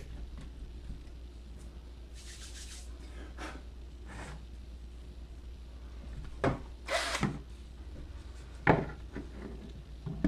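A cordless drill and a spring clamp being handled on a wooden tabletop: scattered rubs and knocks, with a sharp knock about nine seconds in, over a steady low hum.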